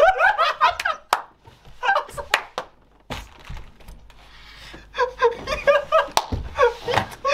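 Two men laughing hysterically in bursts, with several sharp smacks between about one and three seconds in.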